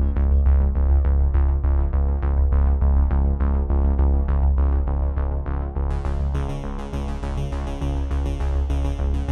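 Background electronic music with a steady beat and a heavy bass line; about six seconds in, a brighter high-pitched layer comes in.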